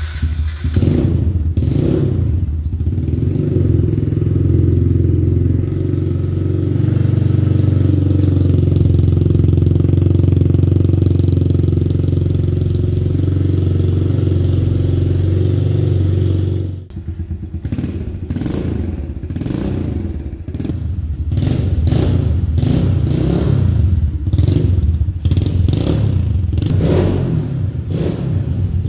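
Kawasaki KLX110R's small air-cooled single-cylinder four-stroke running through a Yoshimura full exhaust: steady running for most of the first part, then, after a brief dip a little past halfway, revved up and down repeatedly with the throttle.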